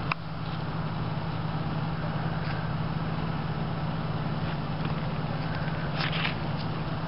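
Steady low hum under a constant rushing background noise, with a short click just after the start.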